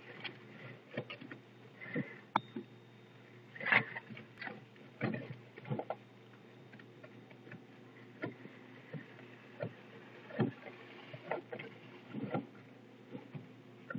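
Irregular knocks, scrapes and clatter of old roofing being torn off, with a brief high tone about two and a half seconds in.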